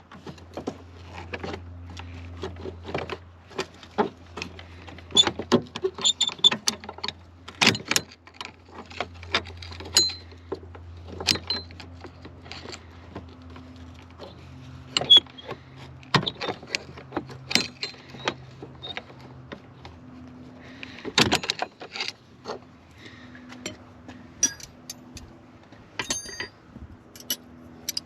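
Irregular metallic clicks, taps and clinks of hand tools working at a truck door hinge, scattered across the whole stretch with a faint steady low hum underneath.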